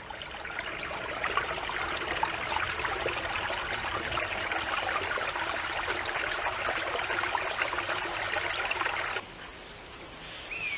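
Small stream running and trickling, with lots of tiny splashes, which cuts off abruptly about nine seconds in. After that comes quieter open-air ambience with a single falling bird call near the end.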